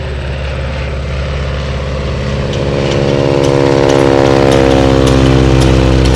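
Biplane's propeller engine droning as the plane flies past, growing steadily louder from about two and a half seconds in.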